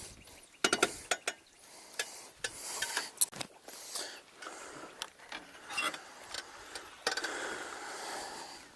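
Irregular clicks and short rattles with a mechanical ratcheting, the sound of fishing tackle and a reel being handled.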